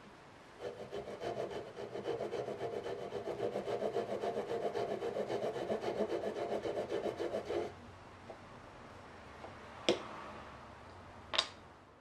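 Japanese hand saw (nokogiri) crosscutting the shoulder of a wooden tenon with quick, short, even strokes, about four a second, which stop about seven and a half seconds in. Two sharp knocks follow near the end, about a second and a half apart.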